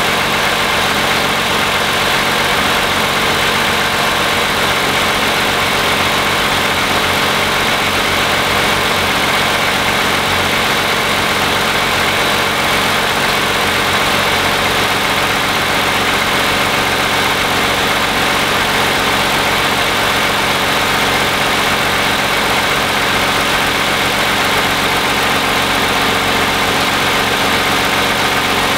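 2010 Toyota Camry's 3.5-litre V6 engine idling steadily, heard from the open engine bay. It is a sound the owner takes as normal for an engine with close to 90,000 miles.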